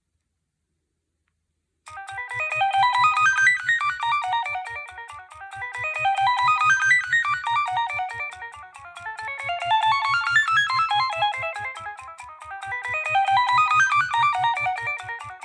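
Nokia 6610 mobile phone playing a polyphonic ringtone. It starts about two seconds in, a quick melody of short notes that rises and falls in phrases repeating about every three and a half seconds.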